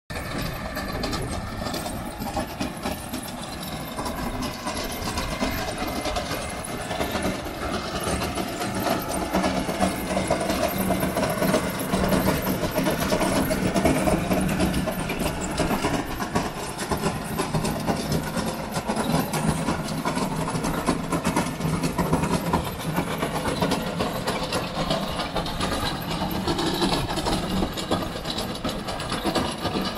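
Tracked drainage trencher laying pipe: its engine running steadily under load, mixed with the grinding rattle of the digging chain and tracks working through soil.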